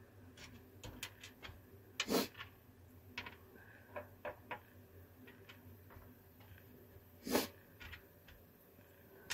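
3D-printed plastic parts clicking and tapping as they are handled and set down on a printer bed: irregular light clicks, with two louder knocks, one about two seconds in and one about seven seconds in.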